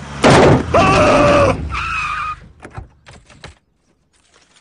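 Police car braking hard to a stop with its tyres screeching, two sustained squeals over the engine, followed by a few light clicks and knocks.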